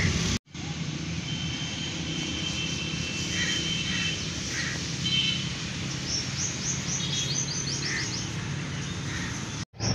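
Open-air ambience: birds chirping, with a quick run of rising chirps about two-thirds of the way through, over a steady low hum.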